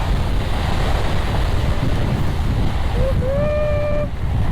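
Wind buffeting the microphone during a fast board slide down a volcanic gravel slope, a steady heavy rush. About three seconds in, a voice lets out a held call.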